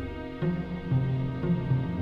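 Symphony orchestra playing: a held chord dies away, and about half a second in a new phrase starts, with low notes moving in short steps beneath sustained higher tones.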